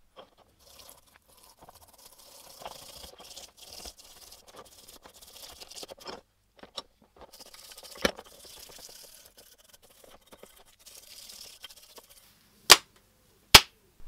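Gloved hands scrubbing and rubbing wet, rust-coated metal coffee grinder parts in a plastic tray, in uneven bouts of wet scraping. There is a sharp click about eight seconds in, and two loud sharp knocks a second apart near the end.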